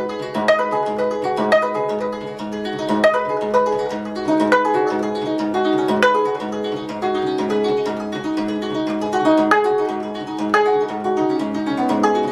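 Gayageum, the Korean plucked zither, played solo: a steady run of plucked notes that ring on after each stroke, over a repeated low note.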